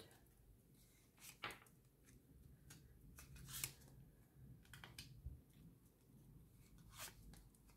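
Faint, scattered card sounds: tarot cards being drawn from the deck and laid down, a short soft slap or rustle every second or so, the loudest about three and a half seconds in.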